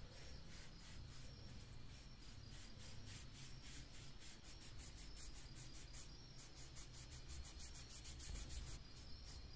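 Faint rubbing of a cloth over a leather-wrapped dagger grip in repeated short strokes.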